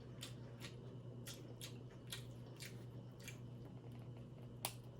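Quiet close-up eating of seafood: about ten soft, sharp clicks and wet smacks of chewing, the sharpest about four and a half seconds in.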